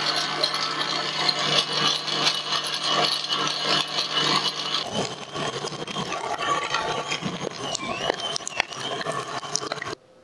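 KitchenAid stand mixer driving its meat grinder attachment, grinding cubed meat through a coarse plate: a steady motor hum with rattling for about the first five seconds. After that the hum gives way to irregular clicks and rattles, and the sound cuts off suddenly near the end.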